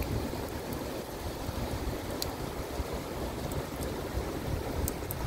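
Heavy rain and flood water making a steady rushing noise, with wind buffeting the microphone and a few sharp ticks.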